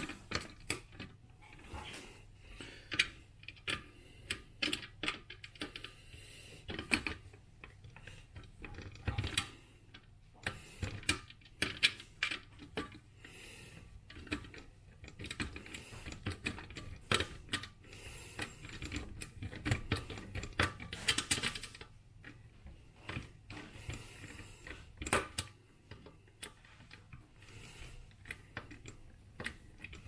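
Hand screwdriver driving a screw into the metal cross base of a floor fan, with many irregular clicks and taps of metal parts.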